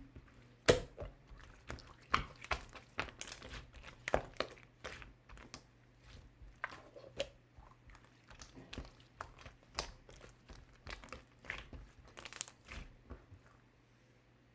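Sky-blue slime with heart-shaped toppings being squished and poked by hand: a run of irregular small clicks, pops and crackles, thinning out near the end.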